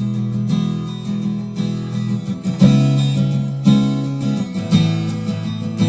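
Recorded acoustic guitar strumming chords, a strong strum about once a second over ringing low notes.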